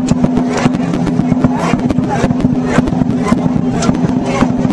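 Traditional Chinese dragon-dance percussion: a big drum beaten in a fast, dense pattern with cymbal clashes, over a steady low ringing.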